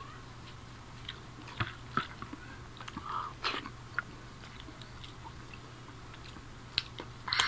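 People eating rice and curry by hand: quiet chewing with scattered small clicks and taps of fingers and a glass on plates, over a low steady hum.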